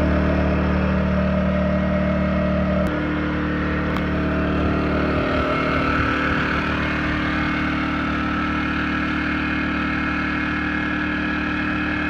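Yamaha EF2000iS inverter generator's single-cylinder four-stroke engine running steadily with eco mode off, powering a trailer air conditioner. About three seconds in, the deepest part of its hum drops away, and the note shifts again a couple of seconds later.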